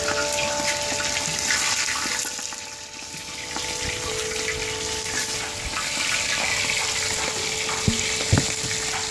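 Lamb bones and a whole onion frying in deep hot oil in a kazan: a steady, dense sizzle, with two short knocks near the end.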